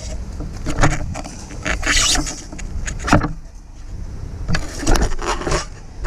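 Irregular knocks and scrapes from handling a rusty metal object pulled out of a canal by magnet fishing, over a steady low rumble.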